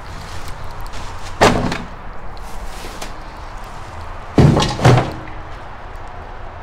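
Plastic wheelie bin's lid banging: one bang about a second and a half in, then two more half a second apart past the middle.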